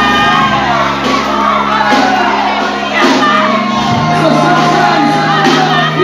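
Live gospel praise music: a group of singers on microphones over a band with held bass notes that change about four seconds in, and congregation members shouting along.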